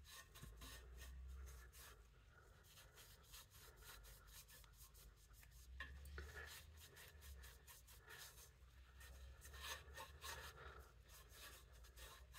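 Faint rubbing of a wet microfibre cloth wiping decarbonizer and loosened carbon out of the inside of an exhaust tip, in irregular strokes.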